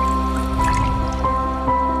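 Instrumental background music without singing: held synth tones over a steady bass, with a few short high plinks.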